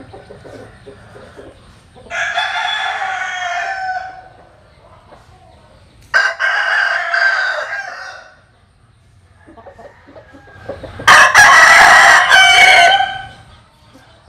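Asil gamecock crowing three times, each crow lasting about two seconds, with pauses between; the third crow is the loudest.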